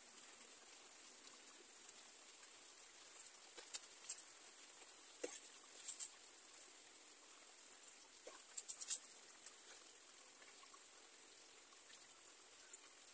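Water thrown from a small basin onto a motorcycle's front wheel: faint splashes and patter in short groups about four, five to six and eight to nine seconds in, over a faint steady hiss.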